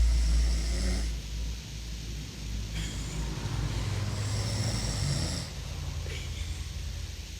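A sleeping young boy snoring, one long snoring breath from about three seconds in to five and a half. A low rumble fades out in the first second.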